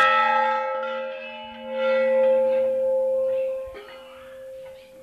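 Large hanging brass temple bell ringing after a single strike, several steady tones at once. The ring swells again about two seconds in, then dies away.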